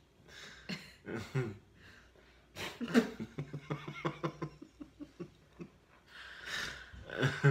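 Soft human laughter: scattered chuckles and breathy giggles, with a run of quick laugh pulses in the middle.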